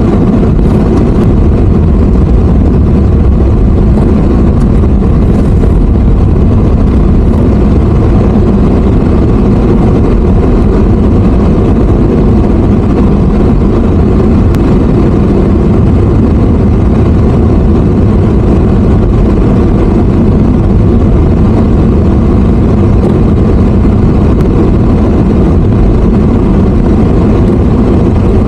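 Loud, steady rumble of a vehicle travelling, with engine and road noise.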